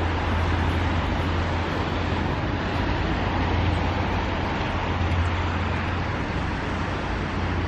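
Steady outdoor background noise: an even low rumble with hiss over it, with no distinct events.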